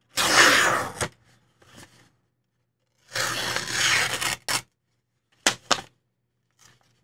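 Knife blade slicing through material in test cuts: two longer slices, the first right at the start and the second about three seconds in, then two short cuts near the end. The S35VN factory edge is cutting a little rough.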